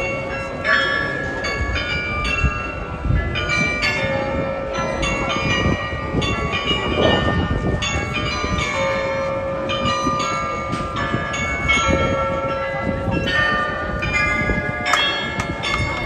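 The glockenspiel in the New Town Hall tower, a set of 43 tuned bells, playing a tune: several struck notes a second, each ringing on and overlapping the next.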